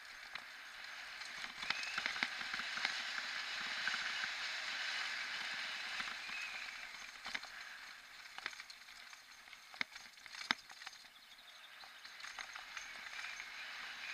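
Bicycle tyres rolling on rough concrete: a steady hiss, louder in the first half, with a few sharp clicks and knocks over the second half.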